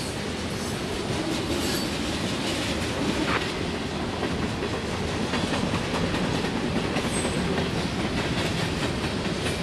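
Freight cars of a CSX train rolling past: a steady rumble of steel wheels on the rails with a few faint clacks, the cars going by at an even speed.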